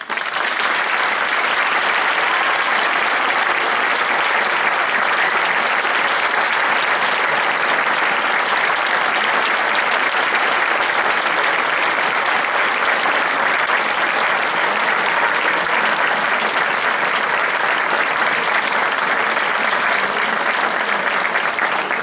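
Large audience applauding steadily, easing slightly near the end.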